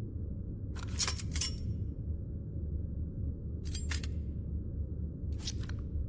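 Metal throwing stars (shuriken) clinking and scraping in short, sharp metallic clicks: a quick run of several about a second in, then two shorter groups at about four and five and a half seconds, over a steady low hum.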